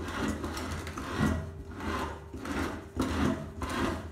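Hand-cranked meat grinder turning, its auger scraping and grinding cookie candy into paste. The rasping strokes come in a steady rhythm, about one and a half a second.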